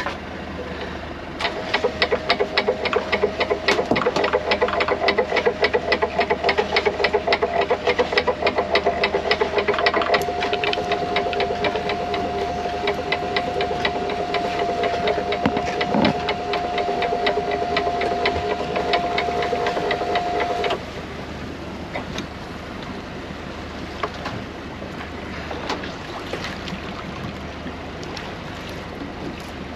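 A small motor-driven mechanism runs with a rapid, even ticking over a steady whine. The whine steps up slightly in pitch about a third of the way in, and the sound cuts off suddenly about two-thirds of the way through.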